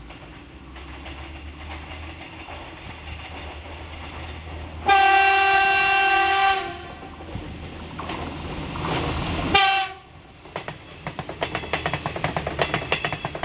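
Renfe Class 599 diesel multiple unit approaching and running past. A rumble grows, then one long horn blast comes about five seconds in and a short second blast just before ten seconds. After that comes a fast clickety-clack of wheels over rail joints as the train passes close by.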